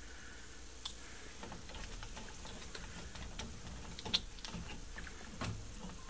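Scattered light clicks and taps as bare copper ground wires and a plastic push-in wire connector are handled, with one sharper click about four seconds in.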